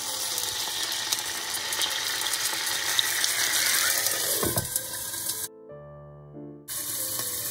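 About 20 ml of water poured into a hot oiled non-stick frying pan of pumpkin cakes, sizzling hard as it hits the oil to steam-fry them. The sizzle breaks off for about a second near the end, then comes back.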